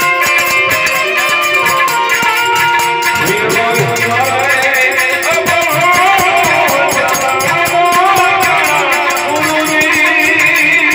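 Harmonium playing sustained chords, joined about three and a half seconds in by a man singing a devotional bhajan, with hand percussion ticking a steady beat throughout.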